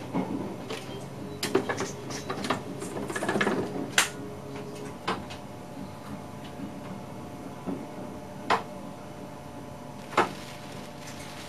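Clicks, knocks and rattles of handling in the driver's cab of a VIRM double-deck electric train, over a steady hum from the train's equipment. The clicks come thick in the first few seconds, then as single sharp clicks now and then.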